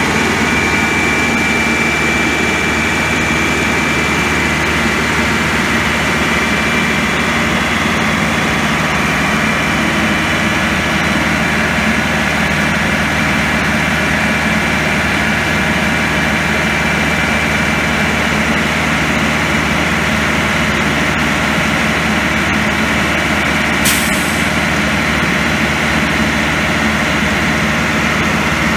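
Caterpillar 3208 V8 diesel of a crane truck running steadily while the hydraulic boom is worked, with a thin steady whine on top. A single sharp click sounds once, late on.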